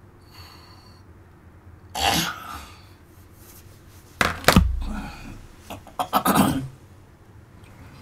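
A person in bed coughing several times, with a heavy thump about halfway through as they turn over on the futon.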